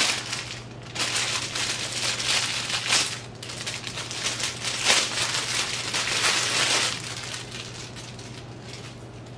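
Packaging of a hair-extension bundle crinkling as it is handled, in several loud bursts over about seven seconds, then quieter rustling near the end.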